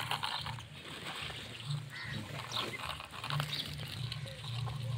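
Plastic toy loader bucket scraping and scooping through sand and gravel, with scattered short scratchy clicks of grit, over a steady low background hum.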